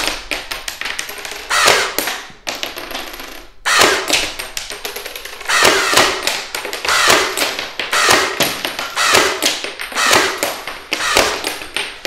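An electric live-cartridge dart blaster shaped like a KRISS Vector fires about ten darts, roughly one a second. Each shot is followed by light plastic clattering as ejected shells and darts land on a wooden floor.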